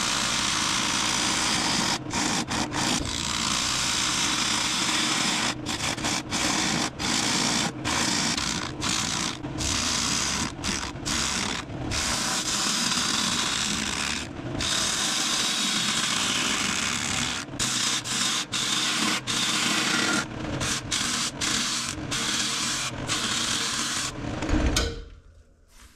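Bowl gouge cutting a very hard, dry cherry end-grain blank spinning on a wood lathe: a steady rough shearing hiss, broken by many short gaps as the tool eases off the wood, over the lathe motor's hum. The cutting stops near the end.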